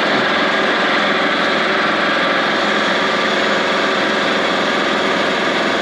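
Farm machine's engine running steadily at a constant speed, loud and close.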